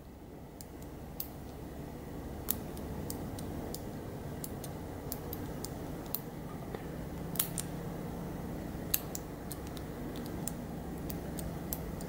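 A string of light, irregular clicks from the number wheels of a brass three-wheel combination padlock, turned one detent at a time while the shackle is held under tension. This is the feel-for-feedback method of cracking the code, checking each wheel for the one that binds.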